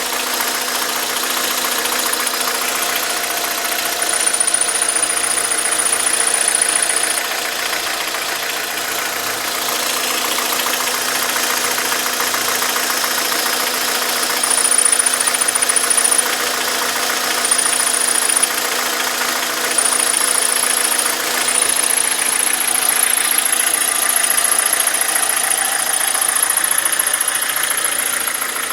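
Hyundai Elantra engine idling, with a thin, very high whistle that comes and goes a few times and then holds steady for the last third: the whistle of the clutch release (throwout) bearing and clutch fork.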